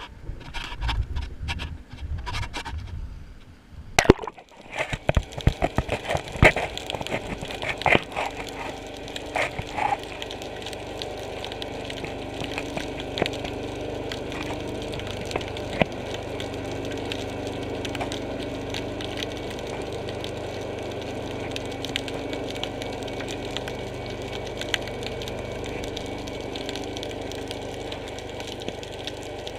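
Sound picked up by a camera underwater: a sharp click about four seconds in and a run of clicks and crackles, then a steady low hum.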